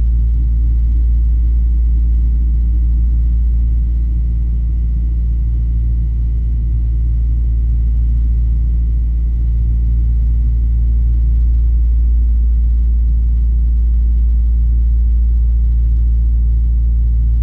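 Steady low drone of a Transall C-160's two Rolls-Royce Tyne turboprop engines and propellers, heard inside the cockpit in the climb after takeoff, with a faint steady high whine over it.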